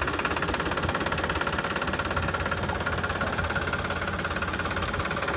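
8 hp single-cylinder diesel engine of a farm water pump set running steadily, with a fast, even knocking beat.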